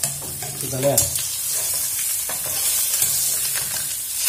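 Pork short rib searing in hot melted butter in a pan, sizzling steadily, with a few clicks of metal tongs against the pan as the meat is turned.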